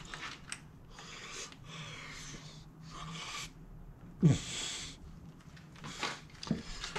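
A man breathing hard while straining to turn a stuck folding-hinge bolt on a Brompton folding bike, with a loud grunting exhale about four seconds in and another weaker one near the end. Now and then the tool clicks lightly on the metal hinge.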